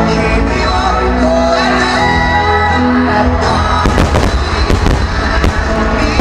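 Music playing over a fireworks display, with aerial shells bursting in a run of bangs and crackle from about four seconds in.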